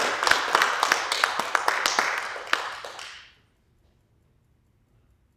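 Audience applauding, dying away about three seconds in, then near silence.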